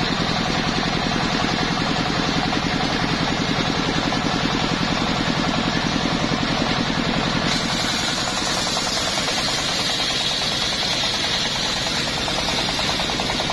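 Engine-driven homemade circular sawmill running, the engine beating steadily as the big blade spins free. About halfway through, a higher hissing whine comes in as the blade starts cutting into a teak log.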